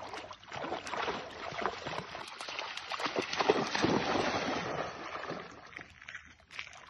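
A bull terrier running through shallow water, its legs splashing loudly and unevenly with each stride. The splashing dies down about five seconds in as the dog reaches deeper water and swims.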